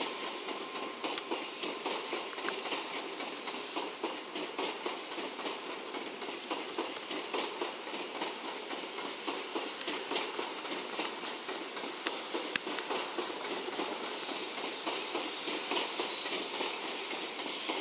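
700 series Shinkansen train rolling slowly through a depot yard, a steady rumbling hiss of wheels on rail with many irregular sharp clicks over the track.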